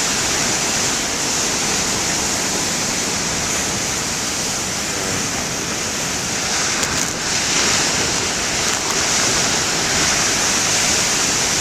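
Heavy ocean surf breaking, a steady loud rush of waves with no let-up.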